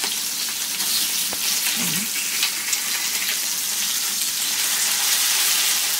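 Marinated anchovies sizzling steadily in shallow oil on an iron tawa, with a spatula turning them in the pan.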